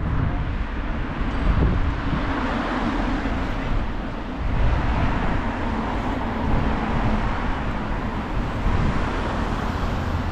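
Road traffic passing, with wind buffeting the microphone in low, irregular rumbles.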